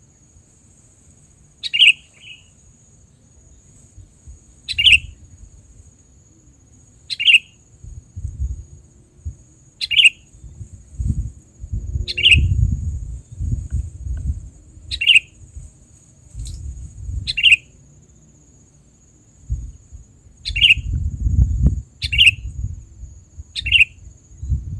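A sooty-headed bulbul giving short, sharp call notes, about ten in all, one every two to three seconds, each a quick downward note. A steady high insect drone runs beneath, with low rumbling noise at times.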